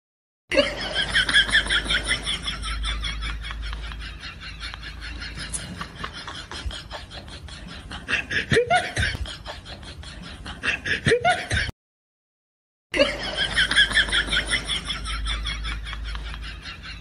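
Laughter sound effect: a long run of quick, loud ha-ha pulses that slowly fades, cut off by a second of dead silence, after which the same laugh clip plays again from the start.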